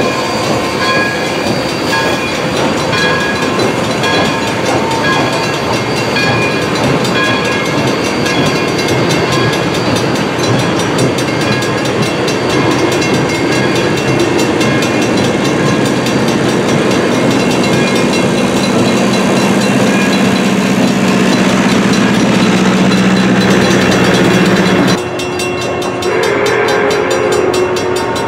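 Passenger cars of a steam excursion train rolling through a grade crossing, wheels clattering over the rails while the crossing bell rings. In the second half a low steady horn-like tone builds for several seconds, then everything drops suddenly about three seconds before the end.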